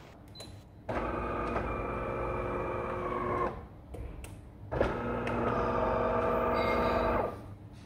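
De'Longhi PrimaDonna Exclusive bean-to-cup coffee machine running its coffee cycle: two steady whining motor runs of about two and a half seconds each, with a short pause between, while the coffee is being prepared before it pours into the cup.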